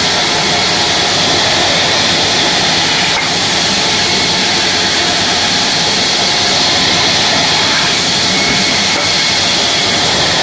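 Large vertical band saw running and cutting through a block of wood: a loud, steady mechanical noise from the blade and motor.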